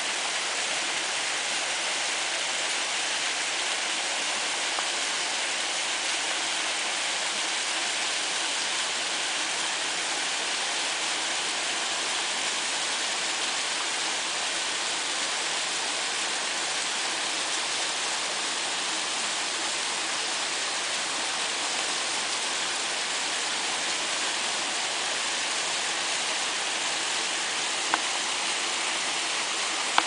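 Small waterfall spilling down rock into a pool: a steady, even rush of falling water, weighted toward the high end. A single brief click sounds near the end.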